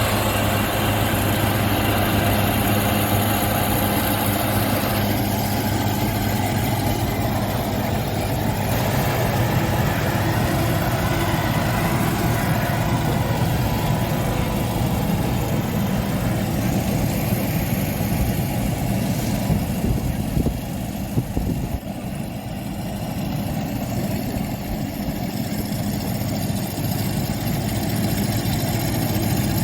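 Engine of a rice harvesting machine running steadily with an even low hum, with a single brief knock about two-thirds of the way through.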